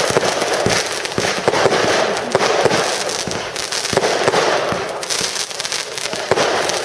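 A 92-shot fireworks compound cake firing: dense, continuous crackling with many sharp bangs mixed in.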